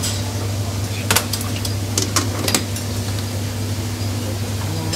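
Commercial kitchen during service: a steady low hum, like ventilation or extraction, with a few sharp clinks of crockery or utensils about a second in and again around two to two and a half seconds in.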